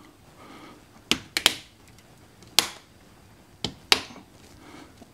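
Small flathead screwdriver tip clicking and scraping against a rusted screw head in an aluminum camper window frame, about six sharp clicks spread over three seconds. The tip is slipping on a screw that won't turn.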